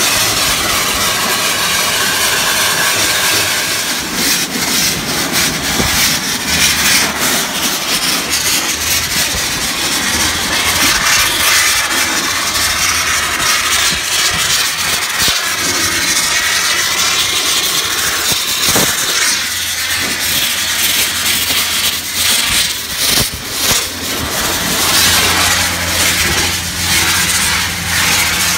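Graco EcoQuip vapor abrasive blaster in rinse mode: a loud, steady hiss of pressurised air and water spraying from the nozzle onto a steel truck cab, the sound wavering as the jet sweeps across the panels. Near the end a low steady machine hum joins it.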